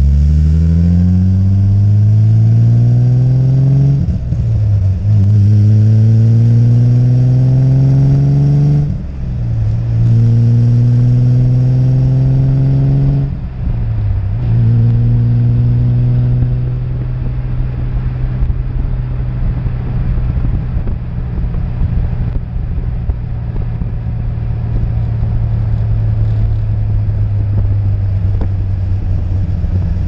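Alfa Romeo GTV6's 2.5-litre V6 exhaust heard right at the tailpipe, accelerating hard through the gears. The engine note climbs in pitch and drops sharply at each of three upshifts, then settles into a steady cruise over the second half.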